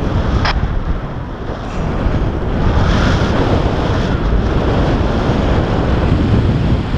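Airflow in paraglider flight buffeting the camera's microphone: a loud, steady rushing wind noise that swells a little about three seconds in, with one brief click about half a second in.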